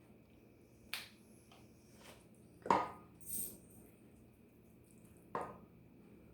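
Quiet handling sounds while assembling enchiladas: three light taps or clicks, the loudest about halfway through, with a brief scrape just after it.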